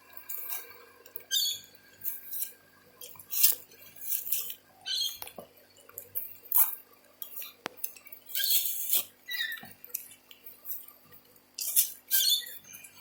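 Irregular scraping and rustling of soil being dug through in a plastic half-drum during a potato harvest, in short bursts every second or so.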